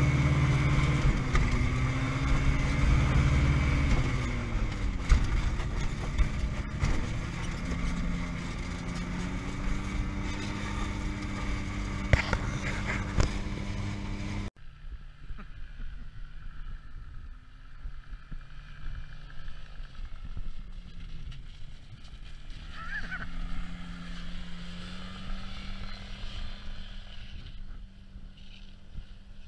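Challenger ultralight's engine and propeller running while it taxis. Close and loud at first, its pitch drops about four seconds in and then holds steady. After a sudden cut about halfway, the same engine is heard much fainter from a distance, its pitch dipping and then rising again near three-quarters of the way through.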